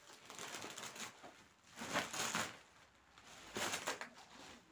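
Packaging being handled: crinkling and rustling, with two louder crackling bursts about two seconds and three and a half seconds in.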